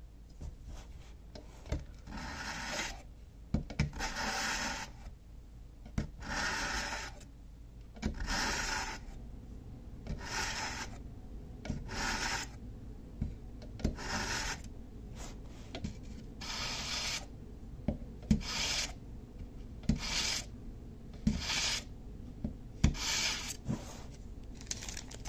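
A dull kitchen knife being drawn again and again through the abrasive slots of a FairyCat 4-stage pull-through knife sharpener: about a dozen short rasping strokes, one every couple of seconds, with small clicks between them.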